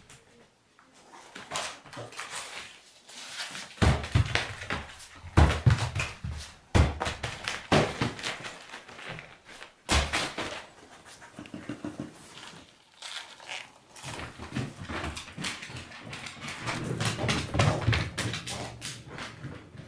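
Lemon beagle panting as it plays, with the knocks and thuds of its paws and cabbages on a wooden floor and rug; a few sharp knocks stand out.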